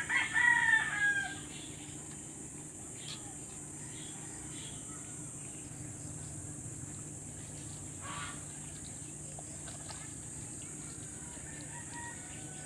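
A rooster crowing, loudest at the very start and trailing off about a second and a half in; after that only a faint steady background.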